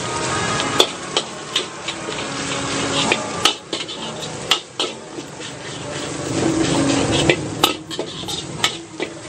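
A long metal spatula stirring and scraping rice around a carbon-steel wok, with irregular sharp clanks as it strikes the pan, about a dozen in all, over the sizzle of stir-frying.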